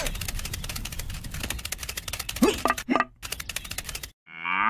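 Small wood fire crackling with rapid, irregular pops, broken by a short rising squeak about two and a half seconds in. After a brief break near the end, a cow starts a long moo.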